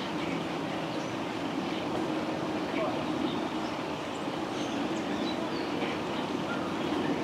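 Steady low background rumble with a few faint, short, high bird chirps over it.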